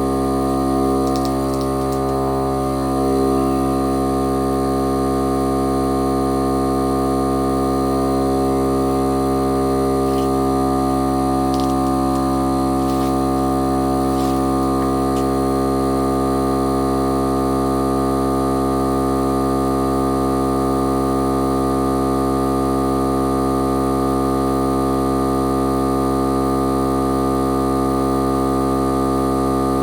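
Milwaukee air compressor running steadily, a constant hum of many steady tones, while it pumps air into a tire to seat the bead.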